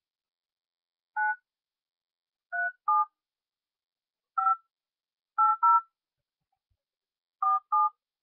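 Telephone keypad tones of a number being dialed: eight short touch-tone beeps at an uneven pace, some in quick pairs, with silence between them.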